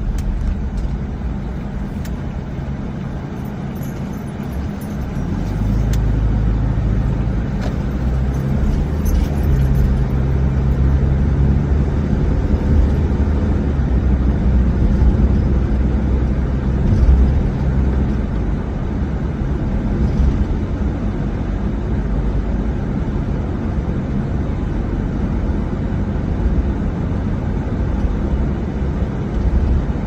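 Car engine and road noise heard from inside the cabin while driving: a steady low rumble that grows louder about five seconds in and then holds.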